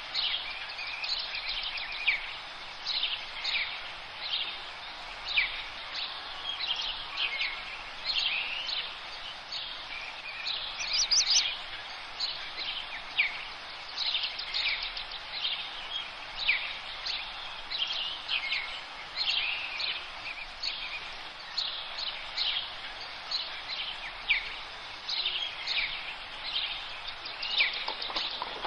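Wild birds chirping and singing outdoors, many short calls one after another, over a steady background noise.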